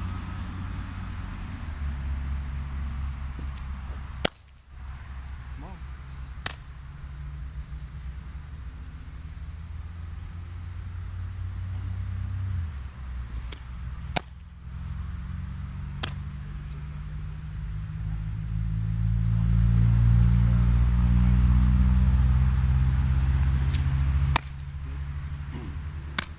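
Insects droning steadily on one high, unbroken pitch. Under it runs a low rumble that swells in the last few seconds, with a few sharp knocks scattered through.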